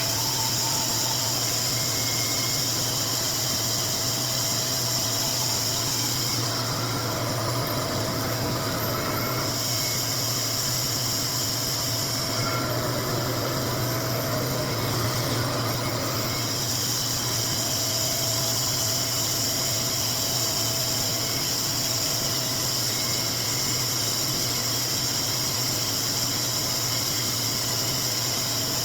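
RevAir vacuum-style hair dryer running steadily: a low motor hum under a strong rushing hiss of air. The hiss thins out twice for a few seconds, about a quarter and half-way through.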